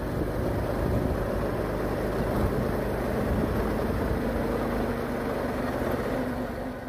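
Motor vehicle running steadily on the move: a continuous engine rumble mixed with road and wind noise, which fades out near the end.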